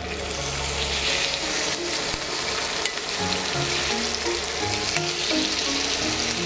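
Raw chicken breasts sizzling in hot oil in a nonstick frying pan, the steady hiss starting suddenly as the first breast is laid in. Soft background music plays under it.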